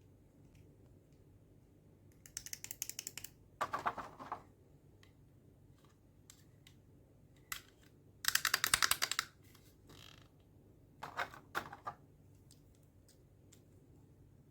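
Rapid clattering clicks of small plastic toy makeup-set pieces and packaging being handled, in four short bursts with a few single ticks between them; the burst just before the middle is the loudest.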